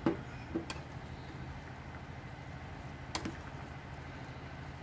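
Metal spoon clicking against a stainless steel pot while stirring pomegranate seeds into spinach filling: a few light clicks at the start and one more about three seconds in, over a steady low hum.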